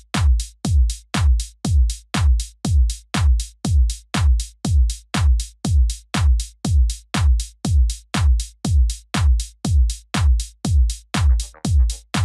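Electronic background music driven by a steady drum-machine kick beat, about two beats a second. A further melodic layer comes in near the end.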